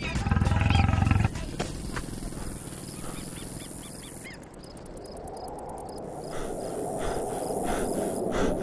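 A lion roars loudly for just over a second and cuts off abruptly. Then comes a quieter stretch with a few faint chirps, followed by a steady rushing noise.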